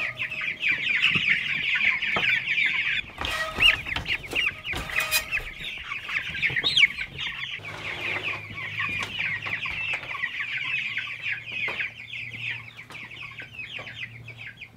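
A crowd of young Ross broiler chicks, a few weeks old, peeping constantly in high, rapid chirps. Two brief rustling noises come a few seconds in. The peeping grows thinner and quieter near the end.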